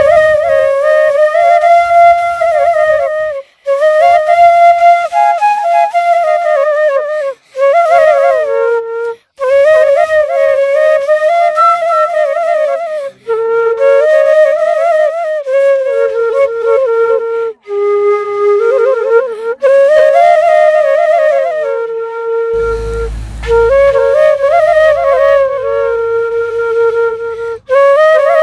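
Solo flute playing a melody in phrases, with short breaks between them for breath. A brief low rumble sounds under it about three-quarters of the way through.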